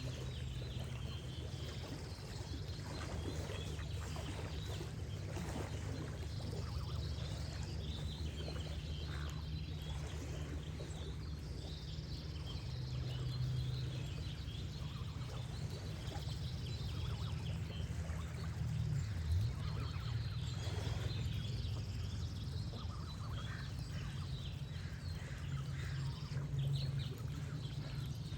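Nature ambience: geese honking now and then over songbirds chirping and gently trickling water, with a steady low rumble underneath and a high trill that repeats every few seconds.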